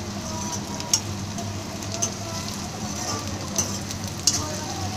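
Onions, capsicum and crushed garlic sizzling in an iron kadhai as they are stir-fried with a metal spatula, with four sharp clinks of the spatula against the pan.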